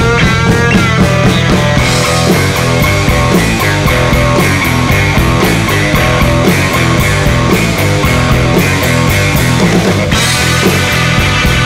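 Loud rock music with guitar over a steady beat.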